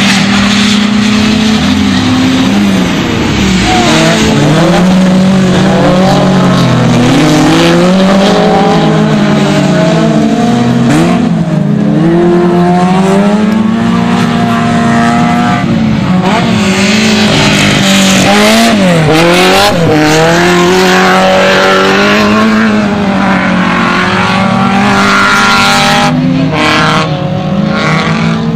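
Autocross race cars' engines racing on a dirt circuit, their notes rising and falling again and again with the throttle, more than one car heard at once.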